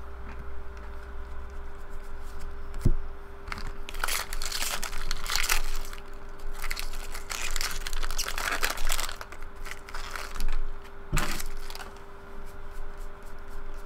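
Foil wrapper of a 2013 Bowman Jumbo baseball card pack crinkling as it is torn open and handled, along with cards being flipped through by hand. Two sharp knocks, about three seconds in and again near the end.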